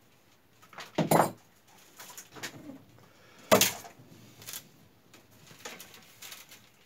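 Willow rods rustling and knocking as they are pushed and pulled through the weave of a wicker basket. The two loudest knocks come about a second in and about three and a half seconds in.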